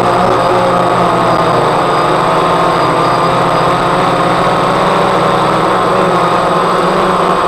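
DJI Phantom quadcopter's electric motors and propellers running in flight, heard from the camera carried on the drone: a steady buzzing hum of several pitches at once over a hiss of rushing air.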